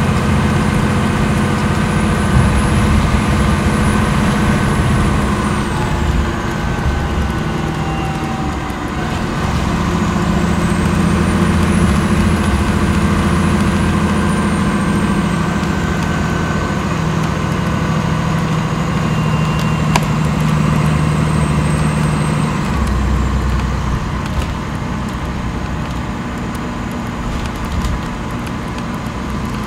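Cummins ISL8.9 inline-six diesel of a Dennis Enviro 500 double-decker bus running under way, its drone holding steady in stretches and stepping in pitch, then easing off about 22 seconds in. A faint high whine glides up and down above it.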